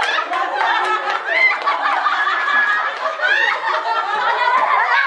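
A group of adults laughing and shouting excitedly over each other, with a couple of high rising shrieks about a second and a half in and again past the middle.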